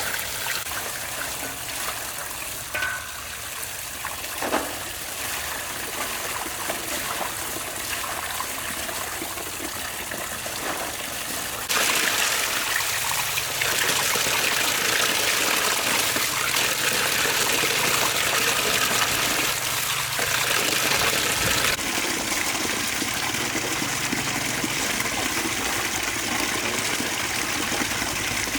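Water running steadily, growing louder about twelve seconds in and easing back about ten seconds later, with a couple of faint knocks near the start.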